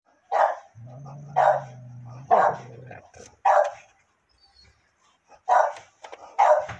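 A dog barking six times: three barks about a second apart, a pause, then three more. A low, steady growl runs under the first three barks.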